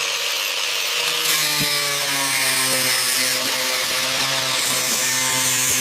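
A power tool running steadily: a motor's even whine over a harsh hiss, as from grinding or sanding metal.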